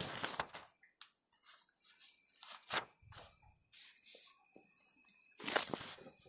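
Faint background sound of an insect trilling: a high-pitched tone pulsing rapidly and evenly throughout. Scattered soft clicks and rustles sit over it, the loudest about five and a half seconds in.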